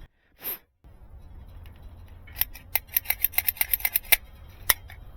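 A quick run of sharp clicks from small hand work, about eight a second for nearly two seconds, then one more click a moment later.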